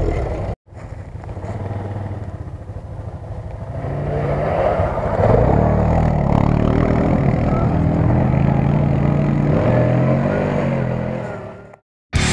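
Quad bike (ATV) engine running as it comes down a steep dirt bank, growing louder about four seconds in and holding steady, then fading out near the end.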